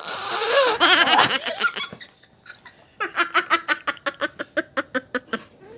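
Women laughing hard: a loud, noisy burst of laughter with wavering pitch for the first two seconds, then a quick run of short rhythmic 'ha-ha-ha' pulses, about six a second, that trails off near the end.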